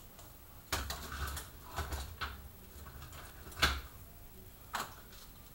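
Plastic model train cars being handled and lifted off the HO track: a handful of light clicks and knocks with dull thuds, the sharpest a little past the middle.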